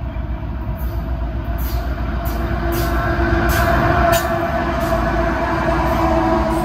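Two GE freight diesel locomotives, a CN ET44AC leading and an ES44AC behind it, passing close by. Their engines give a steady rumble with a held whine, building to a peak about four seconds in as the lead unit comes alongside. A series of sharp high clicks comes from the wheels on the rails.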